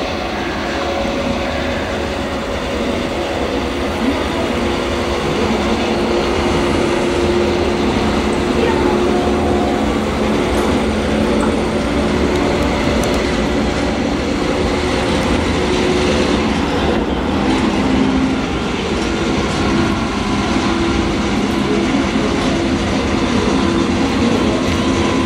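Class 295 diesel-hydraulic shunting locomotive running at slow speed as it approaches with a train of grain hopper wagons: a steady engine drone over the rumble of the train on the rails, growing a little louder as it comes closer.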